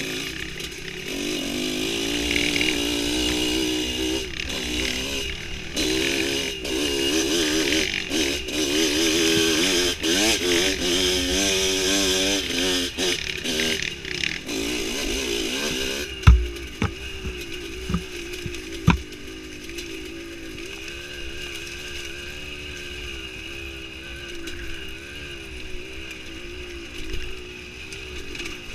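Dirt bike engine running on a rough trail, its revs rising and falling constantly as the throttle is worked. About two-thirds of the way in there are a few sharp thumps, and after them the engine runs lower and quieter.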